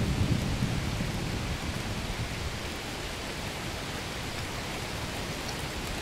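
Steady rain with a low rumble of thunder that dies away over the first couple of seconds.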